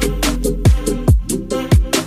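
Background music: an electronic beat with deep, pitch-dropping kick drums, ticking hi-hats and steady synth chords.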